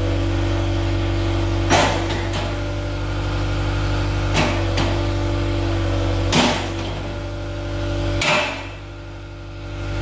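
Diesel engine of a CAT 279D3 compact track loader running steadily while its BH130 backhoe attachment is worked hydraulically, with four short, loud surges of noise as the boom and bucket move. The sound drops briefly near the end.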